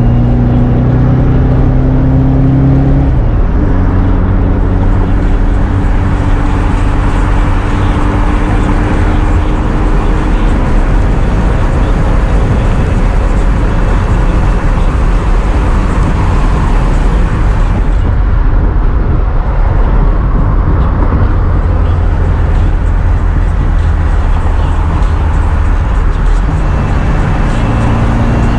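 1965 Volkswagen Beetle's air-cooled 1776cc flat-four, fitted with velocity stacks and an A1 exhaust, running loud while driving. The engine note climbs slowly, drops about three seconds in, merges into steady road noise through the middle and comes back clearly near the end.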